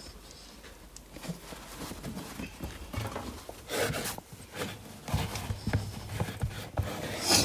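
Folded baby clothes and grey plastic storage baskets being handled on a wardrobe shelf: soft rustling of fabric with scattered light, irregular knocks and clicks.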